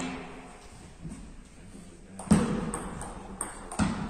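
Table tennis ball being struck with the paddles and bouncing on the table in a rally that starts about two seconds in: sharp, echoing knocks with lighter clicks between them.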